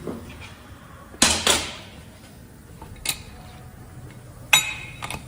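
Truck air disc brake caliper being test-actuated with its brake chamber: a sharp noisy burst about a second in that trails off, a short click near three seconds, and a metallic clank with a little ringing near the end.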